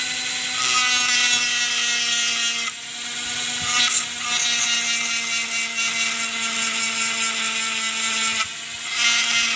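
Small handheld electric rotary tool with a pointed bit, running with a steady whine and grinding against the plastic edge of a nylon trimmer-head plate's line hole, filing down the sharp edge that keeps cutting the trimmer line. The grinding rasp breaks off briefly about a third of the way in and again near the end.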